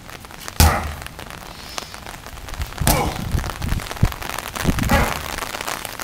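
Sledgehammer striking a large tractor tire: a sharp thud about half a second in and another near the middle, then softer knocks, over a steady hiss.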